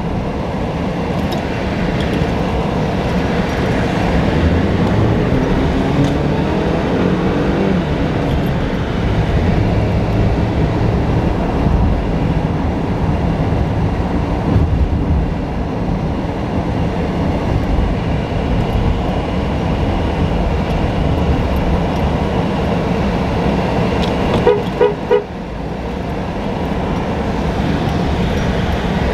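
Steady road and engine noise heard from inside a moving car's cabin. The engine rises in pitch several seconds in as the car speeds up. Near the end a car horn sounds three quick toots.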